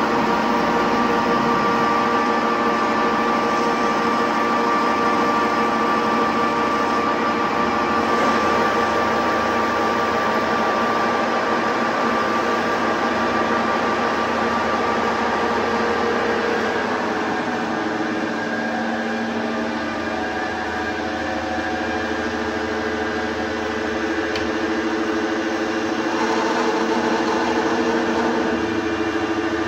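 Metal lathe running: a steady machine hum with several whining tones. The mix of tones shifts about halfway through.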